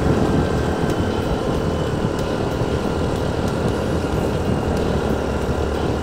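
Steady riding noise of a motorcycle on the move: the engine running at an even pace under wind and tyre noise.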